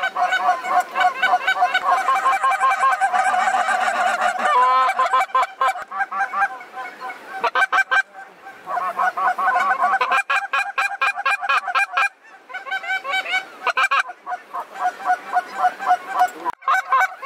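A huge flock of snow geese flying over, calling constantly: a dense chorus of many overlapping high honks and yelps, thinning out briefly a few times.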